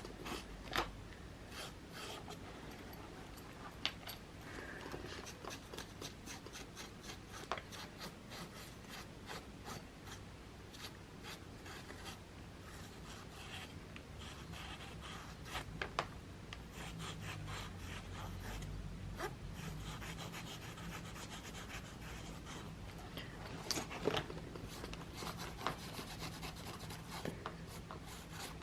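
Faint rubbing strokes of painting by hand on a surface, with scattered light ticks and a few louder clicks of the tools being handled.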